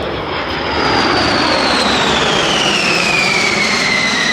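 Jet aircraft passing overhead at an air show: a loud engine roar with a high whine that falls steadily in pitch as it goes by.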